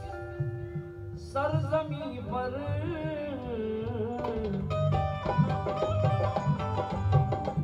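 Ghazal music: tabla playing under held instrumental notes. A singing voice glides through one long ornamented phrase from about a second and a half in until about four and a half seconds.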